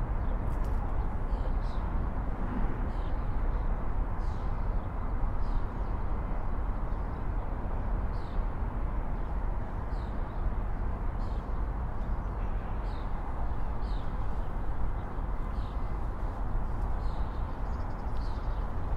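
Steady low rumble of city traffic, with a small bird chirping over it in short high notes about once a second.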